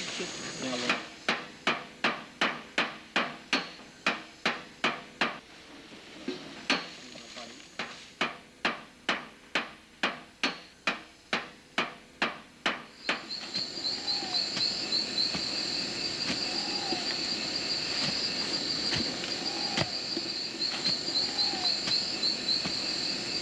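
Hammer blows nailing up a sign board, about three strikes a second in two runs with a short pause between. The hammering stops about 13 seconds in, and then insects chirr steadily, with a short rising-and-falling call repeating about every two seconds.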